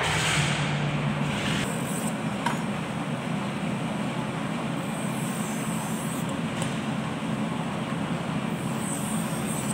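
Steady low mechanical rumble and hum from unseen machinery, with a single sharp click about two and a half seconds in.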